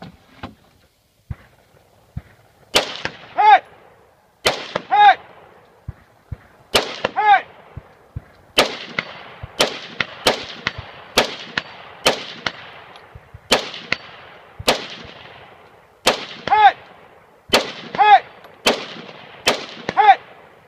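A slow string of single rifle shots from a scoped AR-style rifle, about fifteen, one every second or so. Several shots are followed a moment later by a short metallic ring, the sound of a distant steel target being hit.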